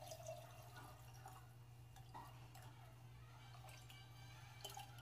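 Lime juice being poured faintly from a stainless steel cup into glass mason-jar mugs, trickling and dripping, over a steady low hum.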